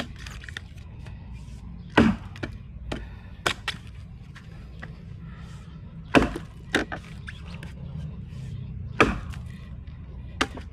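Steel felling axe chopping into a tree trunk: three heavy strikes a few seconds apart, with lighter knocks between them.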